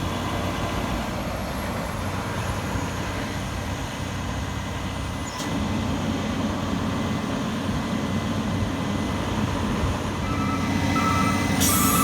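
Fire truck's diesel engine running steadily, stepping up in level about five seconds in. Near the end a warning beeper starts beeping about once a second, and a loud hiss of released air begins just before the end.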